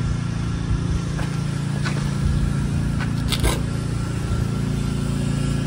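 A steady low motor hum throughout, with a few faint clicks and a brief scrape a little after three seconds in.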